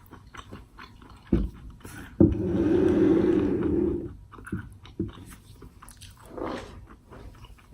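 Close-up eating sounds: chewing, biting and wet mouth clicks. About two seconds in, after a couple of sharp knocks, there is a louder sound lasting about two seconds.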